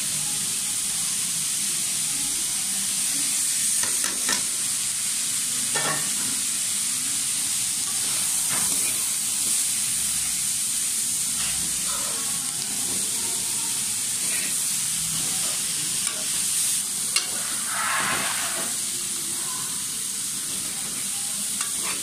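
Chopped vegetables frying in oil in a wok, a steady sizzle, with a metal slotted spatula scraping and knocking against the pan now and then as they are stirred.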